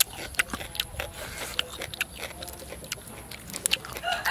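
Close mouth sounds of a man chewing: irregular wet smacks and clicks of lips and tongue, a few each second. Near the end a rooster starts to crow.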